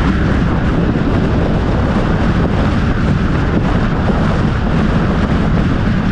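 Steady road and wind noise of a car driving, a constant low rumble with no breaks.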